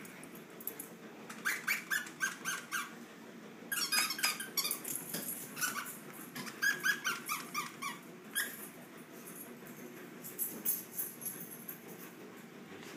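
Shih Tzus wrestling in play: several bursts of short, high-pitched sounds, about four or five a second.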